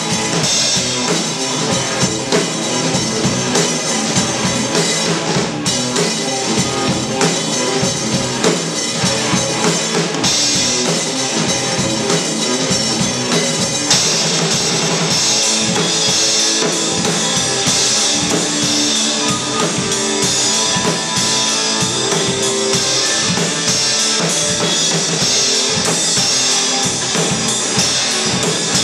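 Live rock band playing loud and without a break: two electric guitars through amplifiers over a drum kit with a steady kick-drum beat.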